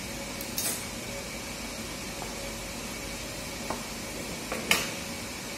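Cardboard box and paper packaging being handled: two short rustles or scrapes, one about half a second in and a louder one near the end, with a few small clicks, over a steady background hum.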